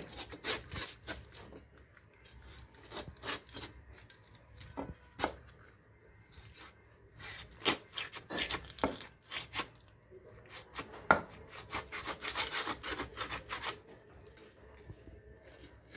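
A hilsa fish being scraped and rubbed by hand over a steel bowl. Irregular rasping scrapes come in short clusters, with a few sharper clicks among them.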